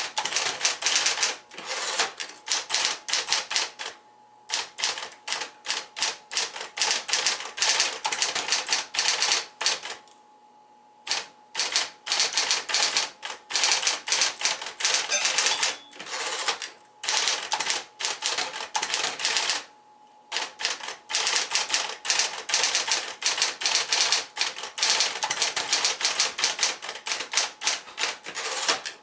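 Smith-Corona Electra 120 electric portable typewriter typing in fast runs of key strikes, broken by a few short pauses, the longest about ten seconds in.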